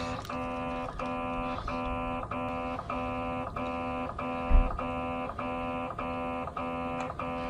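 A transformer-like hum from the Toyota RAV4 EV's high-voltage battery charging system, pulsing on and off in an even beat of about one and a half to two pulses a second rather than holding steady. It is the strange noise heard near the battery while it charges. One short low thump comes about four and a half seconds in.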